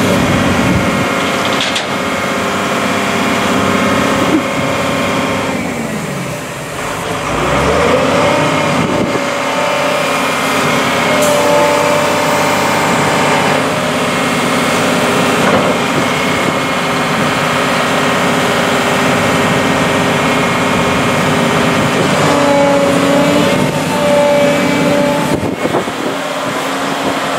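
Truck engine running with road noise while driving, the engine note dipping briefly about six seconds in and then rising again.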